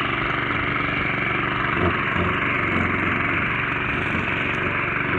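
Champion LMH5629 lawn mower's four-stroke petrol engine running at a steady speed after being cleaned and serviced, keeping running without stalling.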